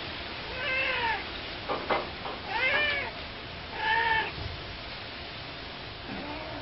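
Three short animal calls, each rising then falling in pitch, with a sharp click between the first two, over a steady hiss.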